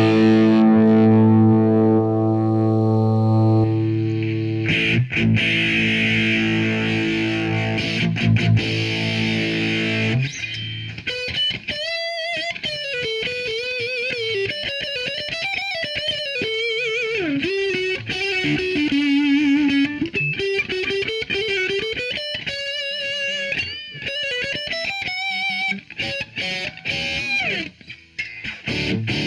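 Electric guitar played through a homemade overdrive pedal with a built-in graphic EQ, set for a metal tone with scooped mids and boosted bass, into amp-modelling software. It gives heavily distorted held chords for about ten seconds, then a single-note lead line with string bends and vibrato that stops shortly before the end.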